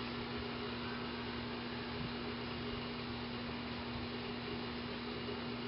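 Steady electrical hum with a constant low tone under an even hiss, unchanging throughout, with no distinct events.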